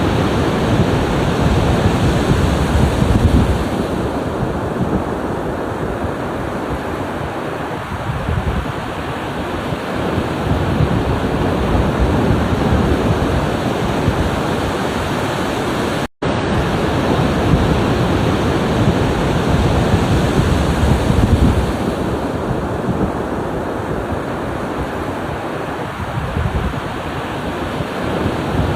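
Ocean waves breaking and washing ashore in a steady surf, swelling and easing every few seconds. The sound cuts out for a split second about halfway through, then resumes.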